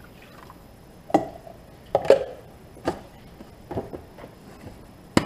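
Kitchen clatter: a string of sharp, irregular knocks and clacks of kitchen items being handled and set down, starting about a second in, roughly one or two each second.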